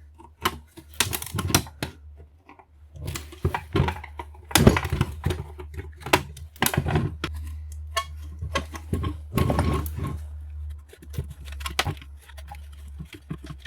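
Irregular metallic clicks, taps and clinks of hand tools on brass nuts and fittings as they are loosened and handled, over a steady low hum.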